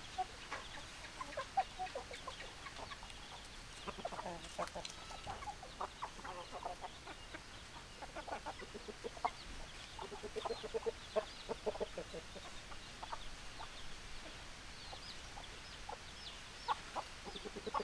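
A flock of hens clucking: many short calls, singly and in quick runs, with no pause longer than a second or so.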